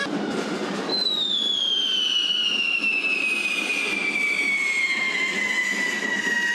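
Spark-spraying firework fountain on a fire-beast figure hissing steadily. About a second in, a shrill whistle starts and slowly falls in pitch.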